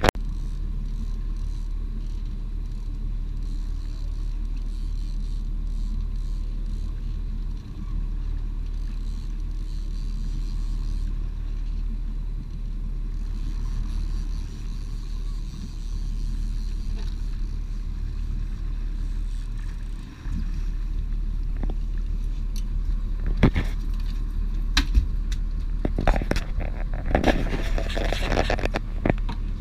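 Steady low rumble of a fishing boat's engine and hull under way. Scattered sharp clicks and knocks come in the last several seconds.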